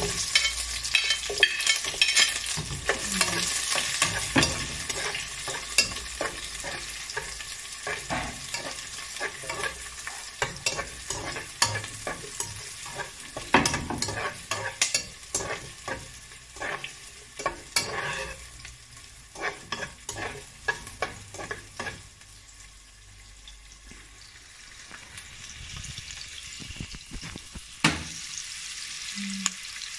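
Sliced onions and garlic sizzling in hot corn and olive oil in a nonstick pot, while a metal spoon stirs and clicks against the pot. The sizzle is loudest in the first few seconds and dies down; the spoon clicks stop a little over two-thirds of the way through, with a few knocks near the end.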